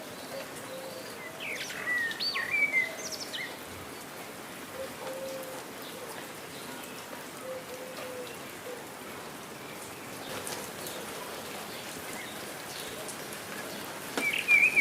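Nature ambience: a steady wash of rain, with songbirds chirping in quick rising and falling notes about two seconds in and again near the end. Faint, short, low bird calls repeat underneath throughout.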